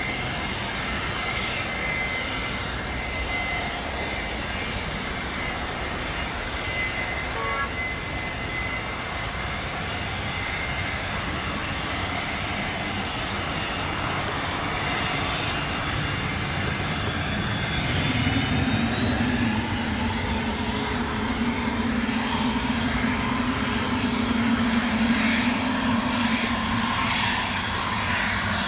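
Aircraft engines growing louder as the aircraft comes in to land. Their steady noise builds from about two-thirds of the way through, with a whine rising in pitch and a deepening hum.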